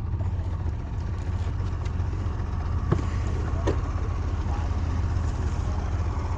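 Pontoon boat's outboard motor running steadily as a low, even rumble, with two short clicks about three seconds and three and a half seconds in.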